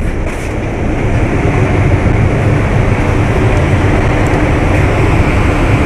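Steady rumble and rushing noise of the passenger ship KM Sinabung under way, heard on its open upper deck, with a faint steady hum running through it.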